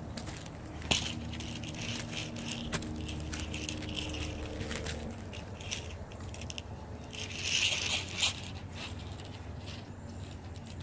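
Crunching and scraping from roof-edge demolition, with scattered sharp clicks as siding and drip edge are worked loose. The scraping grows louder about a second in and again near the end.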